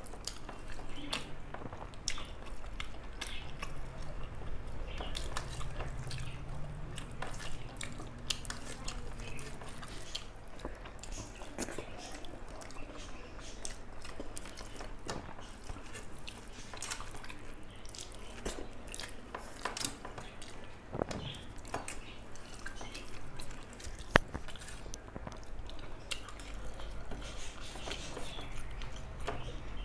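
A person eating rice and curry close to the microphone: a steady run of wet chewing, smacking and squelching sounds, with one sharp click well past halfway.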